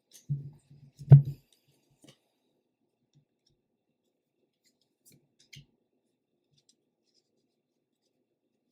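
Two brief soft knocks, the second louder, about a half-second and a second in, followed by a few faint clicks: handling noise at a table.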